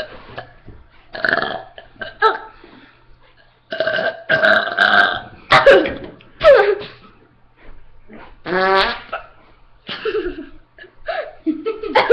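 A person burping deliberately, a string of loud burps one after another: several long and drawn out, some sliding down in pitch, and one with a clear voiced tone.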